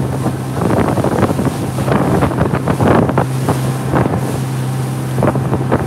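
Motorboat running at speed through choppy water: a steady engine hum under heavy wind buffeting on the microphone, with the hull slapping waves and spray hissing at irregular moments.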